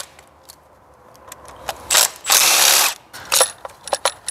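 Cordless electric ratchet spinning out a bolt on a 2JZ ignition coil pack: a short burst about two seconds in, then a longer half-second run. Light clicks and rattles of the coil and bolt being handled follow.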